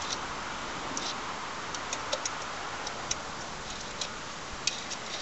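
Scattered light clicks and ticks, irregularly spaced, from a hand working at the top of a small BSA engine that is not running, over a steady background hiss.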